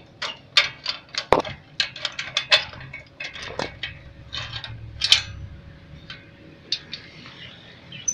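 Irregular sharp clicks and light metallic clinks from rusty steel frame parts being handled, a few a second, with a heavier knock about a second in.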